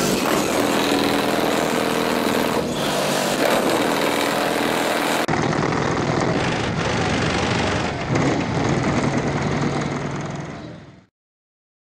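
A car engine idling steadily. The sound changes abruptly about five seconds in, as if from a cut, and fades out near the end.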